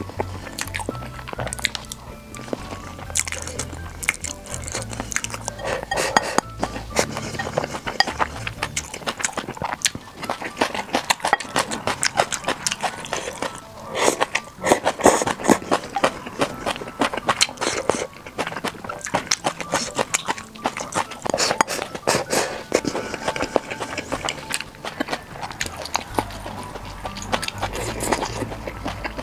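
Background music under close-miked eating sounds: many short wet clicks and crunches of chewing on stir-fried water spinach, steamed sweet potato and rice.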